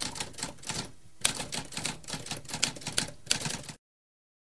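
Typewriter sound effect: a rapid run of key strikes with a brief pause about a second in, stopping abruptly near the end.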